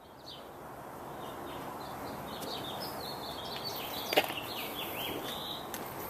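Outdoor background noise with small birds chirping over and over, and one sharp click about four seconds in.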